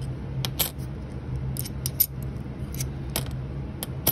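Kennedy half dollar coins clicking against one another as gloved fingers slide them one by one off a stack. There are several short metallic clicks, about one a second, over a steady low hum.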